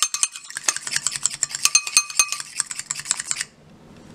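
Fork beating egg whites in a glass bowl: rapid clicking of the tines against the glass, which stops about three and a half seconds in.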